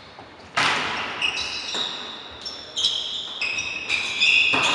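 Indoor volleyball rally: the ball is struck with a sharp smack about half a second in and again near the end, with short, high squeaks of players' shoes on the court floor in between.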